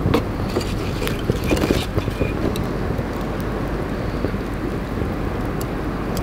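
Wind rumbling steadily on the microphone, with scattered crackles from a wood and lump charcoal fire burning under a rotisserie roast.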